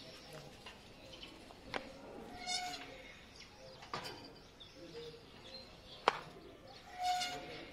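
Sharp knocks and clanks of a steel gate being gripped and climbed, loudest about six seconds in. Two short squealing notes come about two and a half and seven seconds in.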